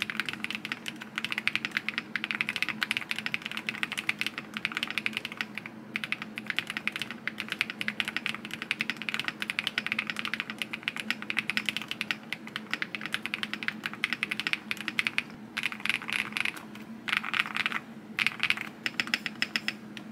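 Typing sound test on a QK75N mechanical keyboard with Neo White linear switches on a polycarbonate (PC) plate: fast, dense keystrokes, with a few short pauses in the second half.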